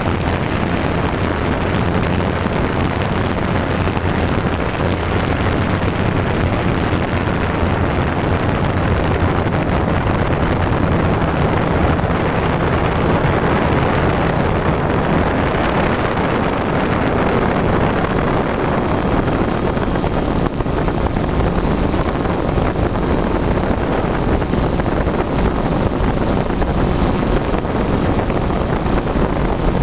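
Quadcopter drone's motors and propellers running steadily, heard through its onboard camera's microphone with wind rushing over it. A low hum is clearest in the first dozen seconds and then fades into the rushing noise.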